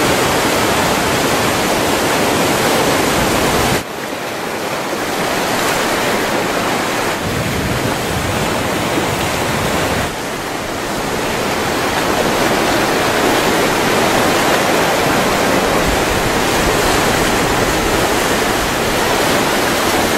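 White-water river rapids rushing in a steady, loud wash of noise, with sudden dips in level about four and ten seconds in.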